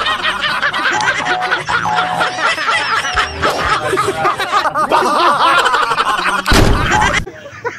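Several men laughing hard and loud at once, a dense stretch of overlapping laughter with no words. A short loud burst cuts in near the end.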